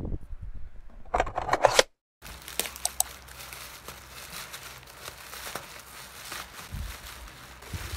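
Black bubble-wrap plastic packaging crinkling and crackling as hands unwrap a package, with many small crackles. Before that, about a second in, there is a short, loud rustling burst.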